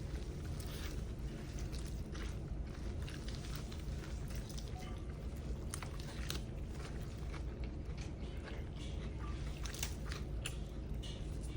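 People eating chicken curry noodles: chewing and mouth noises with many short, scattered clicks, over a steady low hum.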